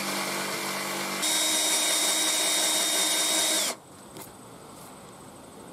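A jigsaw with a fine-toothed metal blade is cutting 6mm aluminium plate. After about a second it gives way abruptly to an electric drill boring through the plate with a steady high whine. The drill stops suddenly a little after halfway through.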